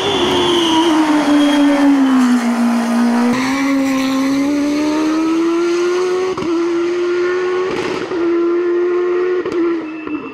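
Silver Car EF10 hillclimb race car running hard past at full throttle. Its engine note falls as it goes by, then climbs again as it pulls away up the hill, with a brief break at a gear change about six seconds in.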